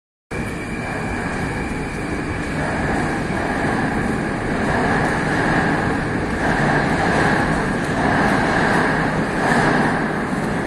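Metro train noise in an underground station: a steady rumble with a high whine. It grows louder through the middle and eases near the end.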